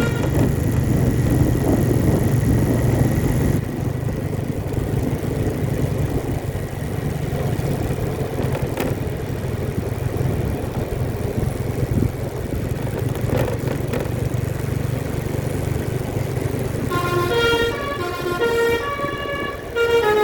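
Steady running of a vehicle engine with road noise. Near the end, an Indonesian 'telolet' bus horn plays a tune of several stepped tones.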